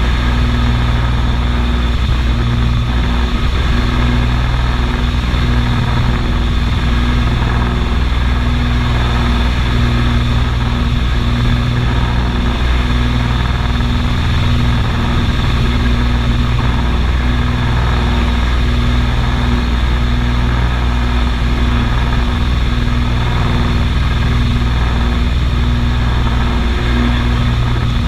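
Beechcraft Baron 55 twin piston engines and propellers droning steadily in cruise flight, heard from inside the cabin, with a slow, even throb in the low drone every second or two.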